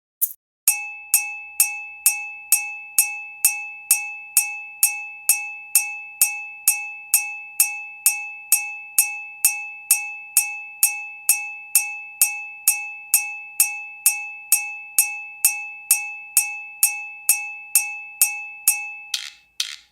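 Percussion loop: sharp, evenly spaced strikes a little over two a second over a steady metallic ringing tone. Near the end it switches to a different, busier percussion pattern.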